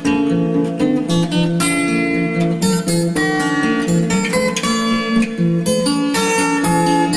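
Background music led by an acoustic guitar, plucked and strummed with a steady run of notes.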